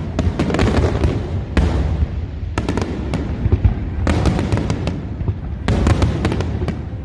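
Aerial fireworks bursting in quick clusters of sharp bangs, a new volley every second or so, over a continuous low rumble.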